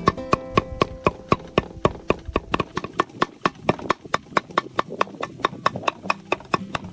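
Cleaver mincing cooked pork belly on a thick round wooden chopping board: a steady run of sharp chops on the wood, about four a second.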